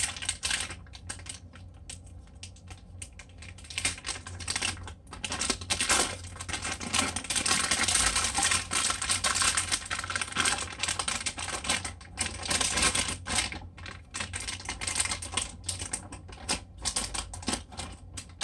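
Plastic bag wrapping crinkling and rustling in irregular bursts as it is handled and pulled off a battery pack.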